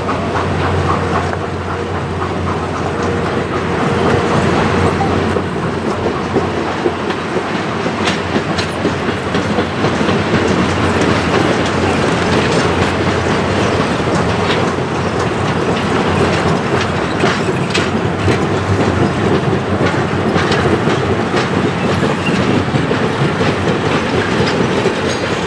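Stainless-steel passenger coaches rolling past, their wheels clicking over rail joints above a steady rumble of wheels on rail.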